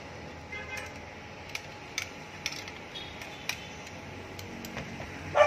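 Sharp plastic-and-metal clicks of a vertical forward grip being pushed and seated onto the accessory rail under the handguard of an airsoft rifle: about half a dozen separate ticks spread over a few seconds, with one louder short sound right at the end.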